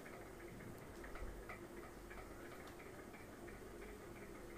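Faint, fairly regular ticking, about three ticks a second, over a low steady hum.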